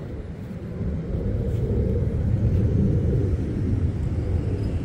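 Low rumble of a distant jet aircraft, swelling about a second in and holding steady.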